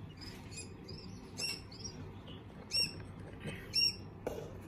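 Newly hatched quail chick peeping: short high-pitched peeps, the three loudest about a second apart, with fainter ones before them. A soft knock near the end.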